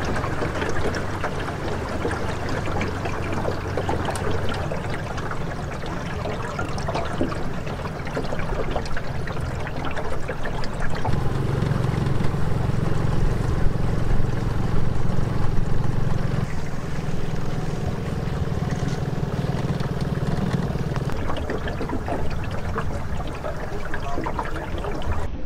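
Outboard motor running as a small aluminium jon boat moves along a river, with water rushing and splashing at the hull. The engine note gets louder for about ten seconds in the middle, then settles back.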